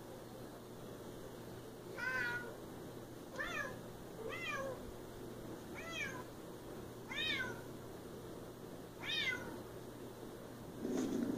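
Siamese cat meowing six times in short calls, each rising then falling in pitch, about one every one to two seconds. A brief low noise comes in at the very end.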